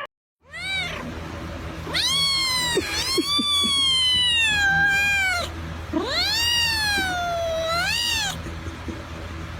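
A domestic cat meowing: a short call near the start, then two long drawn-out yowls, the first about three seconds long and the second about two, each rising and then sliding down in pitch. A steady low hum runs underneath.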